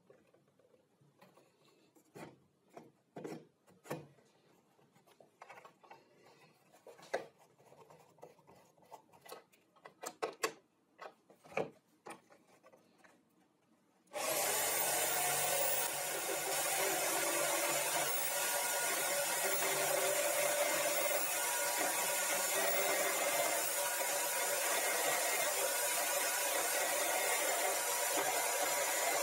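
Wooden parts of a sharpening jig handled and fitted together, with scattered knocks and clicks. About halfway through, the jig's corded electric drill switches on abruptly and runs steadily at speed, turning the stacked sharpening wheels.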